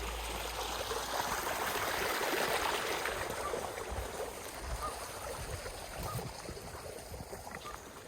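Water rushing steadily over a small spillway waterfall, fading gradually toward the end.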